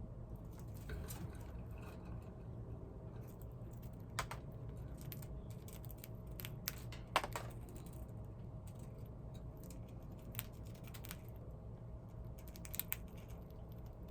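A pet crunching crispy treats: scattered small crisp clicks, with a louder sharp burst about seven seconds in and a quick pair of clicks near the end.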